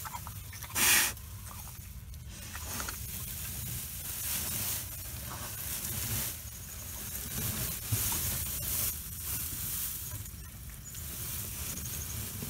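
Mini pigs shifting in straw bedding: a soft, uneven rustling and hiss of straw and breath close to the microphone, with one short loud burst about a second in.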